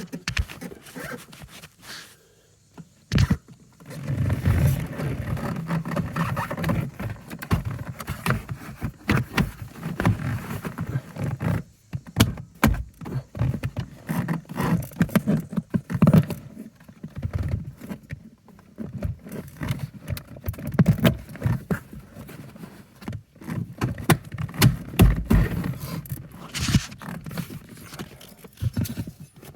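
Irregular knocks, clicks and scrapes of hand-tool and parts handling close to the microphone, with bursts of low rumbling handling noise.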